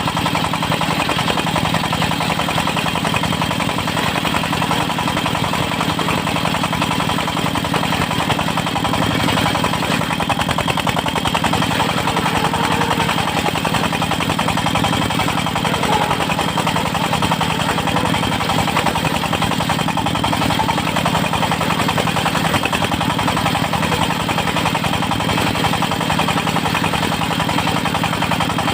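Engine of a portable circular-saw sawmill rig running steadily, with a fast, even beat and no change in speed.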